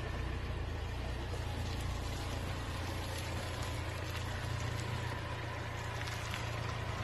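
A vehicle engine running steadily: a constant low rumble under an even hiss, with no clear revving.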